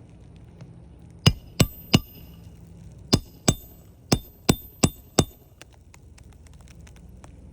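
A hammer striking a roof snake, the metal tool that drives a roofing nail under a shingle: nine sharp, ringing metallic strikes in quick groups of three, two and four, about a third of a second apart.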